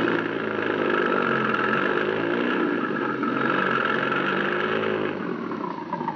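Radio-drama sound effect of a motor vehicle engine running as the car drives, its pitch drifting up and down and easing off about five seconds in.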